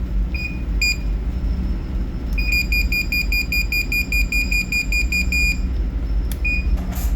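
Furuno Inmarsat-C terminal's distress button beeper, sounding in test mode as the distress button is pressed and held: two single high-pitched beeps, then a rapid even run of beeps, about four or five a second, for about three seconds, and one more single beep near the end. A steady low hum runs underneath.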